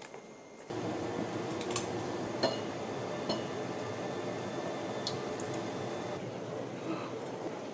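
Grilled gopchang and rice cakes sizzling in a pan: a steady frying hiss that starts abruptly about a second in, with a few sharp pops of spitting fat. Before it, a brief click of chopsticks against a plastic cup.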